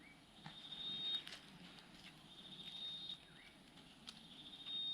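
An insect calling in the background: a high, steady trill in short spells that repeat about every one and a half to two seconds. Faint scattered clicks and crackles come in between.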